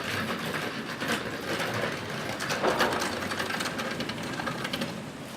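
Rapid, dense clattering and rattling, like hard objects being handled or shaken, with a louder clatter about two and a half seconds in and the level easing toward the end.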